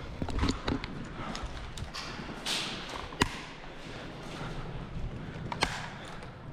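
Boots stepping on a hard floor, with the knocks and rattle of gear and a carried rifle. One sharp knock stands out about three seconds in.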